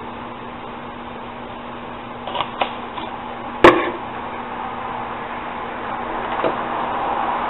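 Small objects handled on a workbench: a few light clicks, then one sharp click or knock about a second later, and a faint click near the end, over a steady background hiss and low hum.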